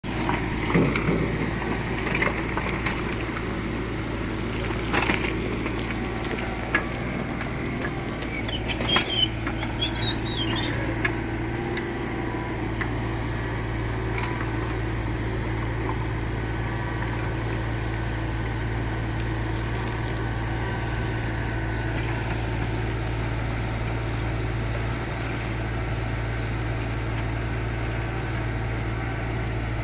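Kubota U30 mini excavator's diesel engine running steadily while it digs, with clanks and metallic scraping in the first dozen seconds, loudest about nine to ten seconds in.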